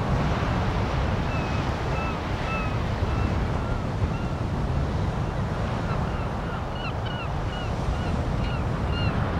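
North Sea surf washing up the beach, with wind buffeting the microphone. From about a second in, short high chirps repeat over it, more of them in the second half.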